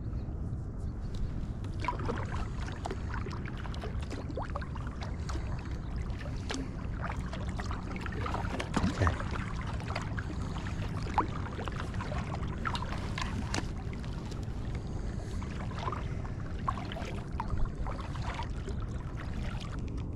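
Angler handling a rod and spinning reel in a fishing kayak: many small clicks and taps from the reel and gear over a steady low rumble.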